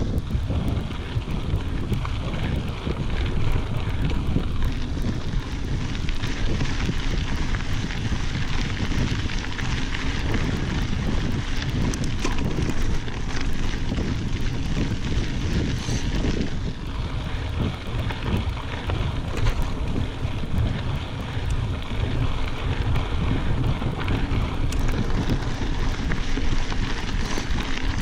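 Wind buffeting the microphone on a mountain bike riding a gravel forest road, over a steady low rumble, with tyres crunching and the bike rattling as it rolls over the loose surface.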